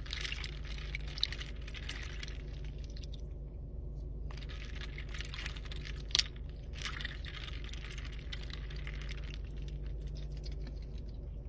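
Rapid, irregular light clicking and tapping in dense runs, with a sharper click about six seconds in, over a steady low hum.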